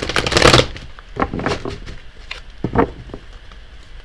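Tarot cards being shuffled: a quick riffling burst in the first second, then a few lighter bursts of card handling.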